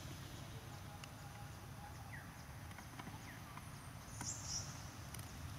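Faint outdoor ambience: a steady low wind rumble with scattered faint clicks and a few brief high chirps, one a little after four seconds in.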